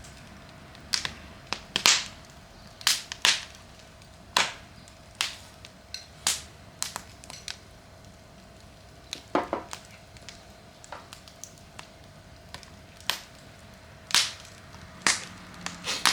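Wood campfire crackling, with sharp irregular pops and snaps, some much louder than others, over a low steady hiss.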